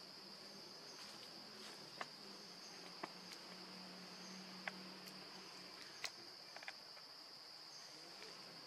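Steady high-pitched drone of a forest insect chorus, with a few faint sharp clicks scattered through it.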